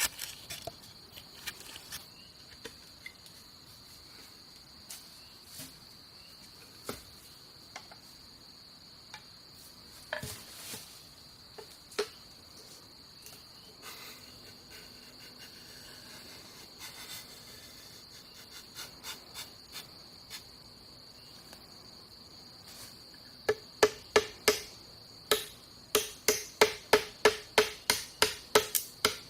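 Steady high-pitched insect drone with scattered light knocks and clicks. Near the end comes a fast run of loud, sharp knocks, two or three a second, like hammering or chopping.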